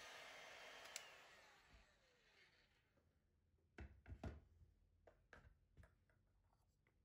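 Heat gun blowing with a steady rush, switched off with a click about a second in, its fan whining down in falling pitch as the noise fades. A few light knocks and clicks of handling follow between about four and six seconds in.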